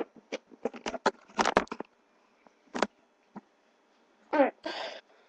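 Rustling and clicking of objects being handled close to the microphone, dense in the first two seconds, then a few lone clicks, with two short louder sounds near the end.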